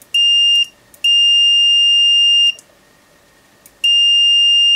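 Multimeter continuity beeper sounding a steady high-pitched beep three times: a short beep, then two longer ones. The beep shows continuity through the off side of the LED lamp's slide switch, which tests okay.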